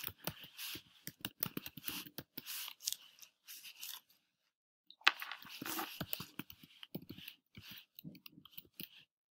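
Typing on a computer keyboard: quick irregular runs of key clicks, with a pause of about a second near the middle.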